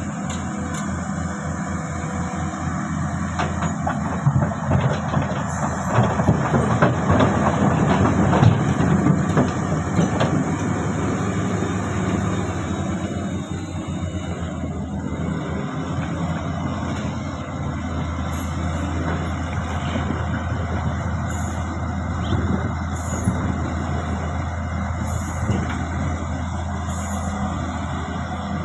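Komatsu excavator's diesel engine running steadily under load, getting louder and busier with clattering from about four seconds in for several seconds, then settling back.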